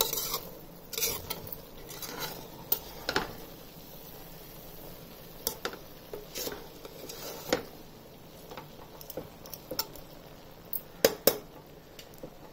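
A metal ladle stirring and turning cooked biryani rice in a large pot, scraping and knocking against the pot in irregular strokes, with a couple of sharper clinks near the end.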